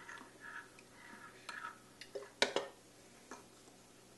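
A carbonated energy drink is poured into a glass bowl of gelatin mix and stirred with a metal spoon, with faint pouring and fizzing of the foaming liquid. Light clinks of the spoon on the glass, and one sharper knock about two and a half seconds in.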